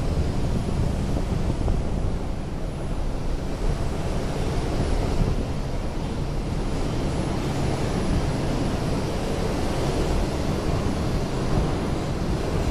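R142 subway car running between stations, heard from inside the car: a steady rumble of wheels on the rails with a rushing roar.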